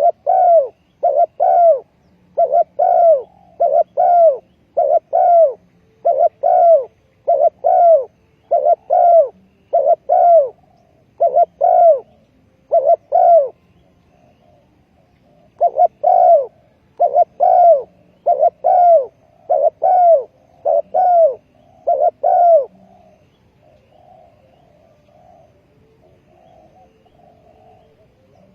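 Spotted dove cooing: a long run of loud, evenly repeated coo notes, breaking off for about two seconds in the middle, then stopping about three-quarters of the way through, leaving only fainter cooing.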